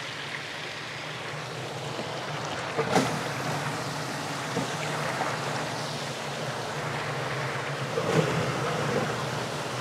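PowerSpout micro-hydro turbines running, water jets rushing through the housings in a steady hiss with a low hum underneath, growing slightly louder as more turbines are turned on. A sharp knock about three seconds in and a few softer ones near the end.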